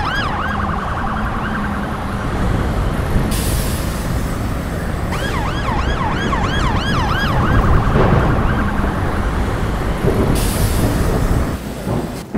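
Siren in a fast yelp, its pitch rising and falling several times a second, heard at the start and again about five seconds in, over a steady rush of road and wind noise.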